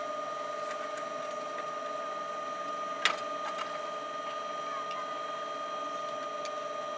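A steady, even machine whine at one pitch with its overtones, with a single sharp click about three seconds in.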